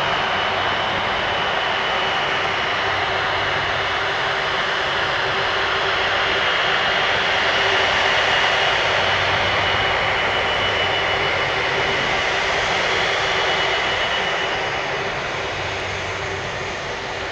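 Airbus A330-243's two Rolls-Royce Trent 700 turbofans at taxi power: a steady jet rush with a high whine over a low hum. It is loudest about halfway through as the airliner passes, then fades toward the end.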